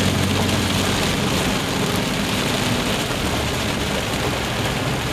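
Steady engine and road noise inside the cabin of a moving car, a low engine hum under an even rush of tyre and wind noise.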